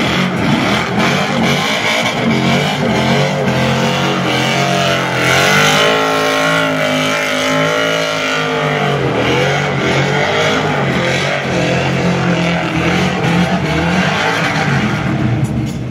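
BMW E36 Compact's engine revving hard while drifting, its note swinging down and up several times, loudest about six seconds in, over a steady hiss of tyres on wet tarmac.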